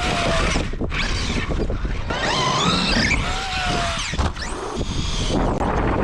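Electric RC monster truck being driven, its motor whining and gliding up and down in pitch as the throttle is worked, with a few knocks from the truck bouncing.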